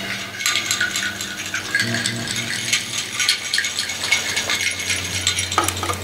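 Irregular rattling and clinking of small hard objects, shaken and handled, over a low steady drone. The rattling stops near the end.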